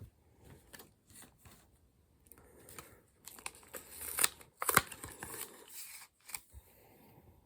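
Foil Pokémon card booster packs crinkling and rustling as they are handled, with scattered sharp snips and clicks, busiest in the middle.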